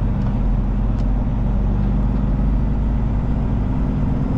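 Semi truck's diesel engine running steadily as the truck rolls slowly, heard from inside the cab as a low, even drone.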